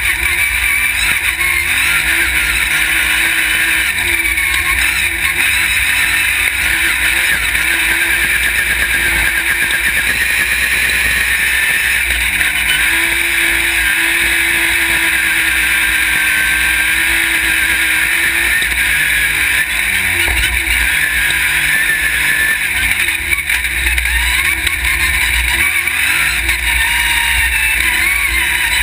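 Off-road race buggy's engine running hard at high revs, its pitch rising and falling, heard close up from an onboard camera by the exposed engine.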